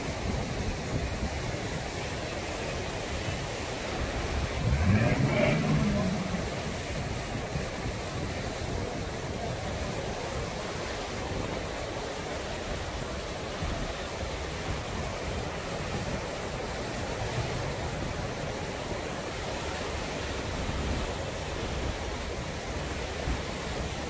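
Small waves washing up a sandy beach in a steady rush of surf. A person's voice calls out briefly about five seconds in.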